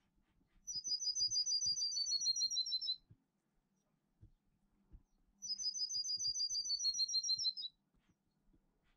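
A songbird singing the same phrase twice: a high, rapid series of paired notes lasting about two seconds each time, dropping slightly in pitch at the end. Faint low knocks sound between the phrases.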